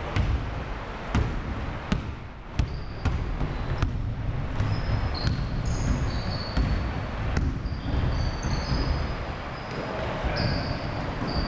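Basketball bouncing on a hardwood gym floor, several separate bounces in the first few seconds. After that come many short, high squeaks of sneakers on the hardwood as players cut and stop, over a steady low rumble.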